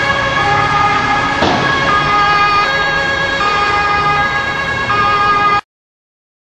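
A loud siren sounding a two-tone pattern, stepping back and forth between a lower and a higher pitch. There is a brief rush of noise about a second and a half in, and the siren cuts off abruptly near the end.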